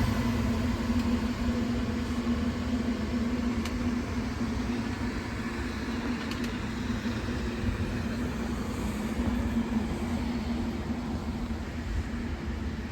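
Train running with a low rumble and a steady hum, slowly getting quieter, with a couple of faint clicks.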